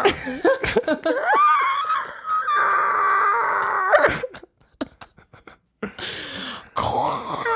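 A person's voice imitating ocean sounds: long, wavering high calls that slide up and down in pitch, then a few sharp clicks and a short hissing rush near the end.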